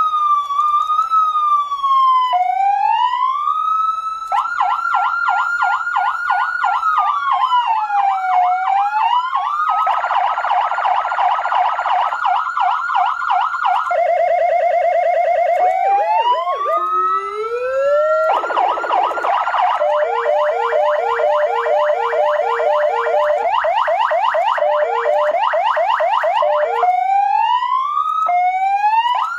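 PA3000 400 W electronic siren sounding through its loudspeaker and switching between tones every few seconds: slow rising and falling wails, rapid yelps, fast warbles and a steady buzzy horn-like tone, with a pulsing beep under the yelp near the end.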